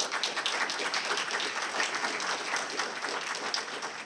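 Audience applauding, a dense clatter of many hands clapping that thins out slightly near the end.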